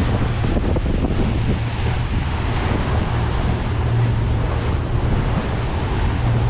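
Boat under way at trolling speed: a steady low Suzuki outboard drone under wind buffeting the microphone and water rushing past the hull.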